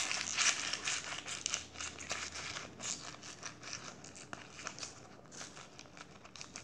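Crunchy slime full of plastic beads being squeezed and kneaded by hand, giving a dense run of crackles and pops that thin out and grow quieter toward the end.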